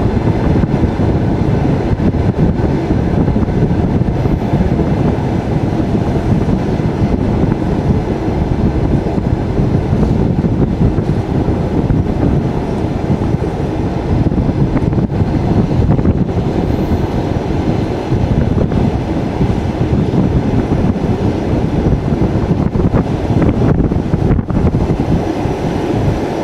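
Steady rumble of a moving passenger railway carriage, heard from its window, with the noise heaviest in the low range.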